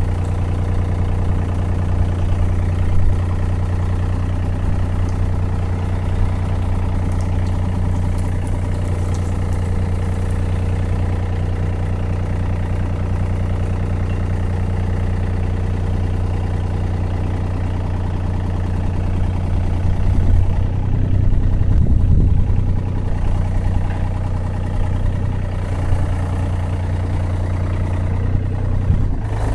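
Takeuchi TB125 mini excavator's diesel engine running steadily at idle. About two-thirds of the way through, the engine note wavers and briefly gets louder as the hydraulics take load.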